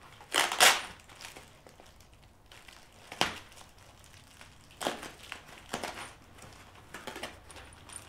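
Packaging wrap being crinkled and torn open by hand, in about five short bursts of rustling.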